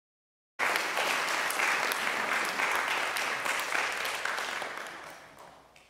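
Audience applauding, starting abruptly about half a second in and dying away near the end.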